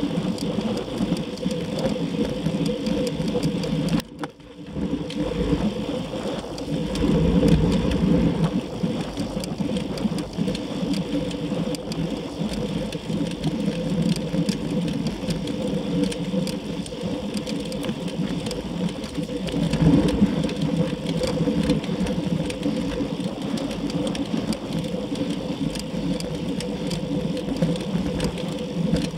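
Road bicycle riding at speed: a steady whir of tyres and drivetrain on asphalt, heard through a bike-mounted action camera. The sound drops away briefly about four seconds in.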